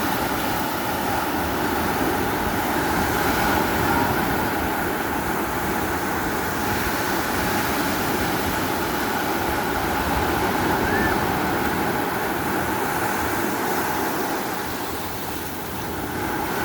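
Steady rushing noise of sea surf and wind, with no breaks or distinct events.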